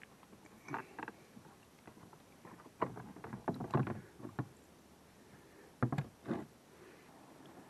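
Molded plastic drive-hole plug being handled and pulled out of a pedal kayak's hull opening: scattered knocks and clatters of plastic on plastic, in small clusters about a second in, around three to four seconds in, and again near six seconds.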